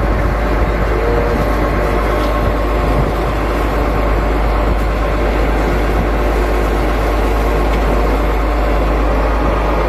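Fishing boat's inboard diesel engine running steadily, a constant low drone.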